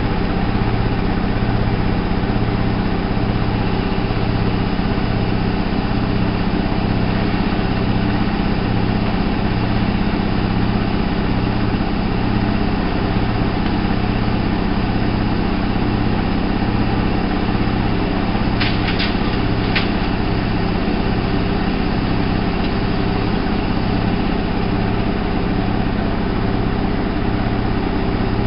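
Alaska WA8200 E washing machine running steadily with a loud hum that pulses about once a second. A quick run of three short clicks comes about two-thirds of the way through.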